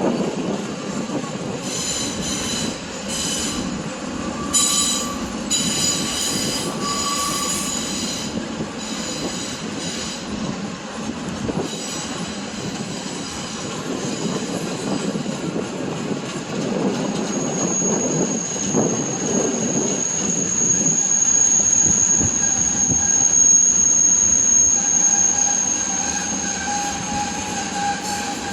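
Norfolk Southern freight train rolling past, its cars rumbling along the rails with high-pitched wheel squeal. There are short squeals in the first few seconds and a long steady squeal through much of the second half.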